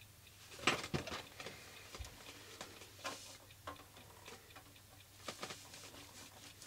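Faint scattered clicks and scrapes of a screwdriver turning screws out of a vintage signal generator's metal back cover, with a few louder knocks about a second in as the case is handled.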